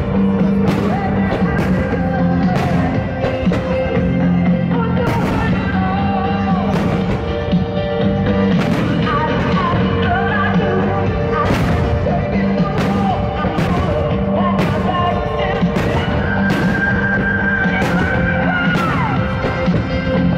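A rock song with singing plays as the soundtrack of a music-synchronised fireworks show. Irregular sharp bangs from bursting fireworks break through it throughout.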